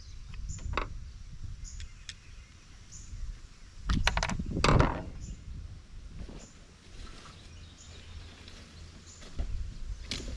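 Loose steel sockets being handled and sorted by hand: scattered light metallic clicks, with a louder clatter about four seconds in, over low background rumble.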